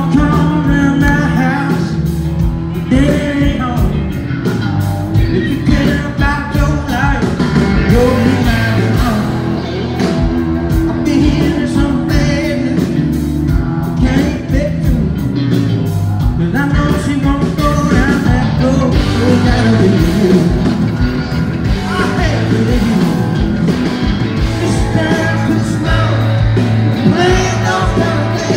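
Live band playing a song with electric guitar, bass guitar and a singing voice, loud and continuous.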